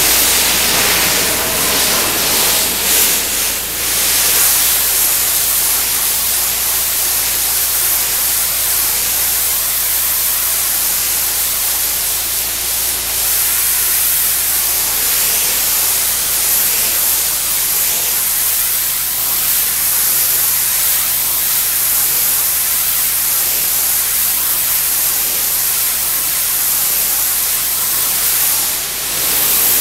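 Pressure washer wand spraying a concrete sidewalk at close range: a loud, steady hiss of high-pressure water striking the surface as it strips spray paint.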